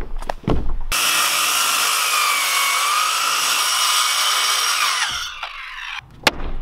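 Corded circular saw cutting through a wooden board: it starts about a second in, runs steadily for about four seconds with a whine, and winds down. A few knocks come before the cut and a sharp click near the end.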